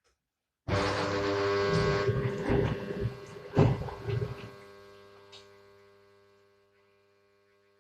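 A water pump humming loudly while a washing machine takes in water. It starts abruptly about a second in as a steady electric hum with a rush of noise over it and a sharp knock a few seconds later. The rush then fades, leaving the hum on its own and quieter.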